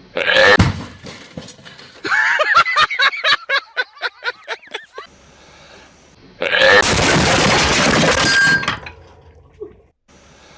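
A hedgehog's sneeze, then a fast run of short stuttering pulses that fades away, then a loud firecracker blast with breaking as a refrigerator explodes, lasting about two seconds.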